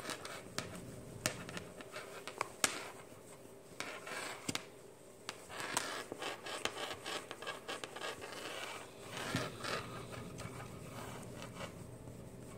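A microfiber cleaning cloth rubbed and wiped across a tablet's bare glass screen: uneven scraping strokes with a few light clicks and taps mixed in.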